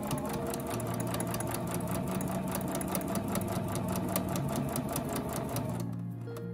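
Electric sewing machine stitching a seam through tatami-mat edging at a fast, even rate of about eight stitches a second, stopping a little before the end. Soft background music plays underneath.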